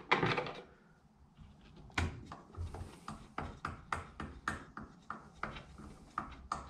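Sharp clicks and light knocks, two or three a second and irregular, starting about two seconds in, as the hand screws holding the top cover of a Craftsman benchtop thickness planer are unscrewed by hand.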